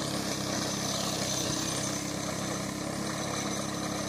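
VST Mitsubishi mini tractor's small diesel engine running steadily as it drives the field, powering a mounted boom sprayer.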